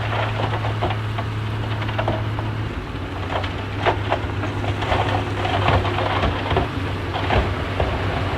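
Bulldozer at work: its diesel engine runs with a steady low hum while frequent sharp clanks and crunches of tracks, soil and stone come through over it.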